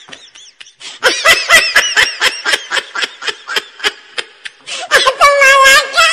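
Loud laughter in rapid, repeated bursts, with a higher, drawn-out laughing voice about five seconds in.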